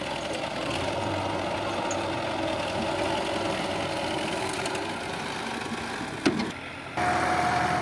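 Diesel engine of a tractor-mounted front loader running steadily with a knocking clatter while the bucket lifts and dumps soil. A sharp click comes near the end, then the sound cuts abruptly to a louder engine with a steady whine.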